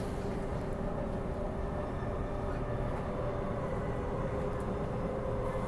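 Transperth Bombardier B-series electric multiple unit running along the line, heard from inside the carriage: a steady rumble of wheels on rail with a steady motor whine.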